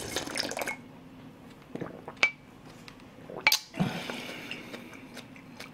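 A spoon clinking against a ceramic soup bowl a few times, the bowl ringing briefly after the sharpest clinks, with a short sip of broth from the bowl at the start.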